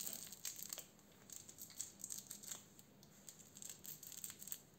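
Crinkle filling inside a plush kitten baby toy's arm and ear rustling faintly in short, irregular crackles as fingers squeeze the fabric.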